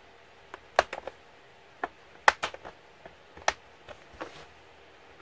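Sharp plastic clicks and snaps, about eight scattered unevenly, as a plastic pry tool works around the edge of a Samsung 700T tablet-laptop's clipped-together case to open it.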